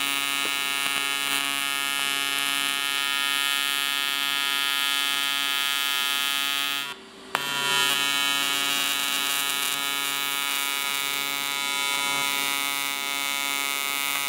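TIG welding arc buzzing steadily as it fuses the seams of an aluminium oil pan. The arc drops out for a moment about seven seconds in and is struck again.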